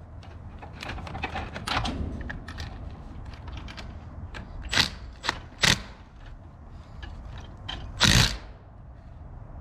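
Metal clicks and clacks of a wrench tightening a fastener on an ATV winch, irregular, with a few sharper knocks about five seconds in and again near the end.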